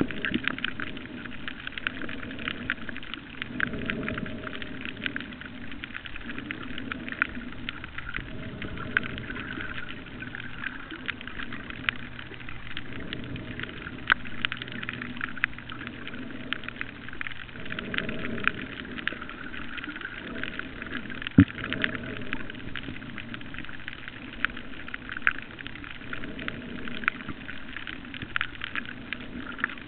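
Underwater reef crackle: a dense, continuous crackling of snapping shrimp, with a low rumble that swells and fades every few seconds.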